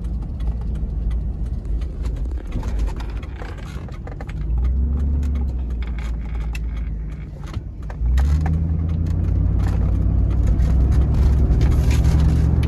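Pickup truck engine and road noise inside the cab while driving, with light rattling clicks. The engine's low drone grows louder about halfway through and steps up again sharply about eight seconds in, then holds steady.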